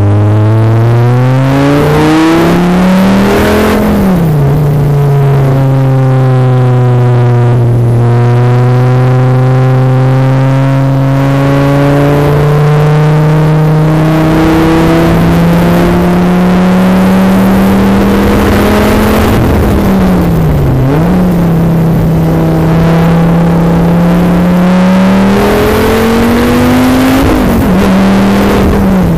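Sports car engine heard from a camera mounted outside on the car, lapping a race track. It revs up and shifts up about four seconds in, then holds a long pull with the engine note slowly climbing, dips and recovers briefly about twenty seconds in, and revs up again near the end, with wind noise throughout.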